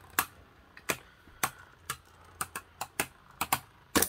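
Two spinning Beyblade Burst tops clashing in a plastic Beystadium: about a dozen sharp plastic clacks at irregular intervals as they knock together.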